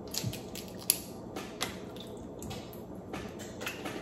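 Hands picking meat out of a steamed blue crab: wet squishing and small, irregular cracks and clicks of the shell, the sharpest just under a second in.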